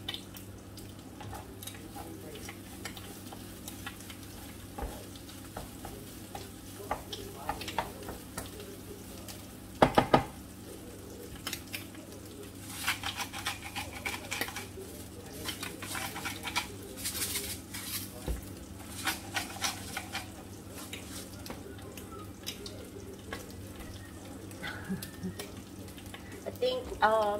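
Rice for sinangag (garlic fried rice) sizzling in a frying pan as it is stirred and scraped with a utensil, over a steady low hum. A loud knock on the pan comes about ten seconds in, and a little later a hand grinder is twisted over the rice with a quick run of clicks.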